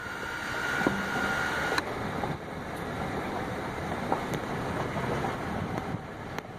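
Jeep Grand Cherokee WK2 driving along a dirt fire road: a steady rumble of engine and tyres on gravel, with a few sharp clicks and rattles. A thin steady tone sounds over it for about the first two seconds.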